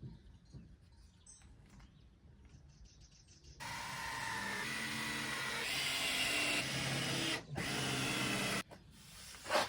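Power drill driving screws into wood, running steadily for about four seconds, stopping briefly, then running again for about a second before cutting off.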